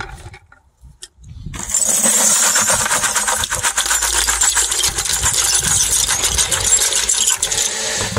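Shredded shotgun shells (plastic hull pieces and brass heads) poured out of a bucket into a bucket of water, a dense continuous clatter and splash of many small pieces starting about a second and a half in. This is the water float-separation step: the plastic floats and the brass sinks.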